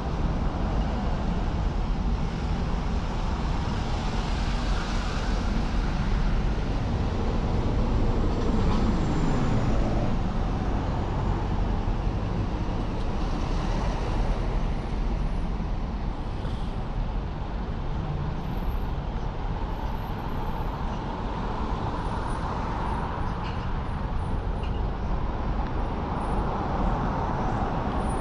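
Road traffic on a city street: a steady mix of engines and tyre noise, with one vehicle passing close and its pitch dropping about eight to ten seconds in.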